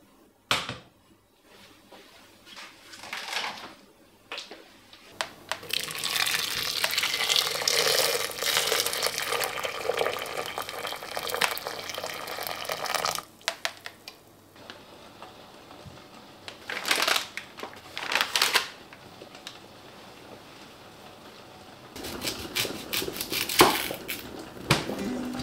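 Water poured from a kettle into a stainless steel pot of peeled potatoes, a steady pour lasting about eight seconds, set among the clatter of pots and utensils. Near the end a kitchen knife cuts an onion on a cutting board, with quick knocks of the blade on the board.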